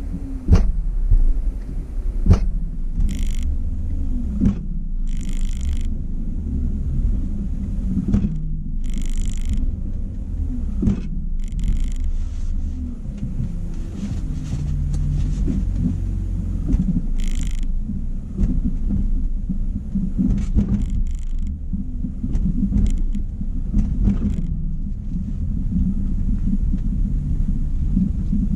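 A steady low rumble with a few sharp knocks in the first couple of seconds and several brief hissing patches scattered through it.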